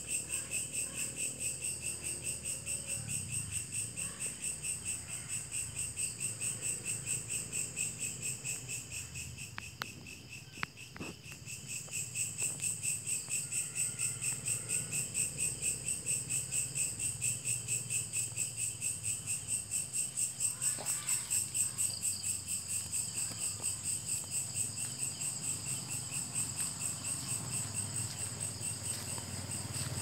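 Night-time chorus of crickets and other insects: several high-pitched trills layered together, pulsing and swelling a couple of times a second. The chorus thins briefly about ten seconds in, with a few faint clicks.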